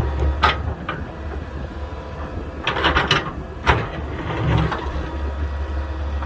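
Komatsu 120 excavator's diesel engine running steadily, with the bucket teeth scraping and knocking against hard limestone rock several times as it digs a trench.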